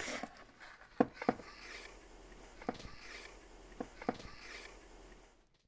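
A handful of light knocks and some rubbing as objects are handled and taken from a wooden shelf. The knocks come in two close pairs with a single knock between them.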